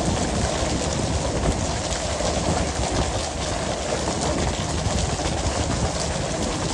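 Steady rushing and rumbling on the working deck of a pole-and-line tuna boat: water and running machinery, with a dense patter of small knocks and slaps throughout.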